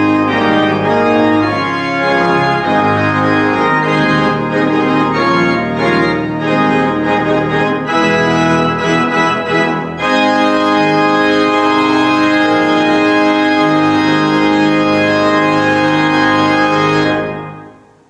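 Organ music: sustained chords that change every second or so, then one full chord held for several seconds that dies away near the end.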